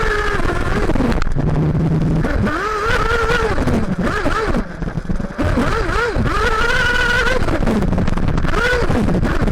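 Two-stroke glow nitro engine of a Kyosho MP9 TKI4 1/8-scale buggy, heard from a camera mounted on the car, revving up and holding high, then dropping off, again and again as the throttle is opened and closed through the laps. A low rumble of wind and track noise runs underneath.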